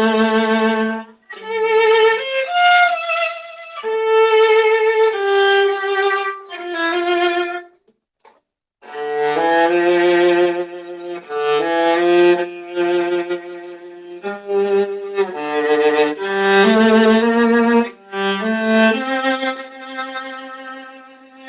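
Solo viola playing a run of bowed notes, some reaching down into the instrument's low range, with a short pause about eight seconds in. It is heard through a crunchy-sounding microphone.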